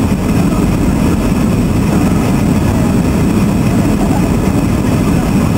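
Jet airliner's turbofan engine and airflow noise, heard from inside the cabin at a window seat over the wing, a steady low rumble with hiss during the descent to land.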